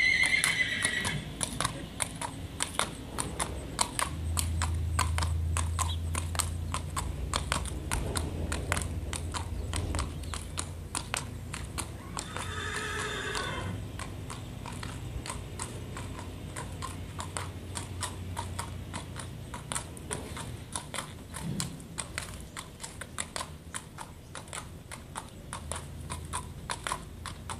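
A horse's hooves clip-clopping on asphalt at a walk, a steady run of hoof strikes, with a horse whinnying at the very start and again about 13 seconds in.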